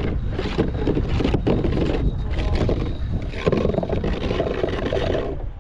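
Wind buffeting the microphone with a steady low rumble, over repeated splashes of choppy water against a kayak in rough conditions.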